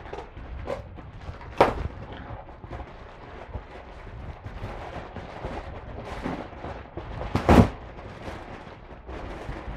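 Thin plastic bag crinkling and rustling as a felt slipmat is handled and pulled out of it, with a sharp crackle about a second and a half in and a louder one about two seconds before the end.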